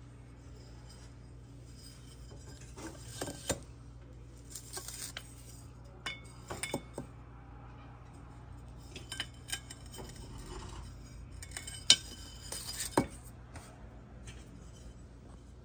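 Glazed ceramic wall tiles clinking and tapping against each other as they are handled and set down: scattered short clinks in small clusters, some ringing briefly.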